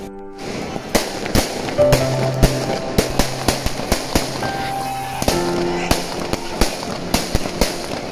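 Fireworks and firecrackers going off in a rapid, irregular string of sharp bangs and cracks, a few each second, with music playing underneath.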